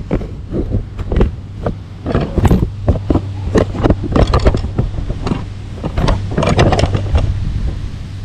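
A small engine humming steadily, with a string of irregular knocks, clicks and rattles of close handling on top.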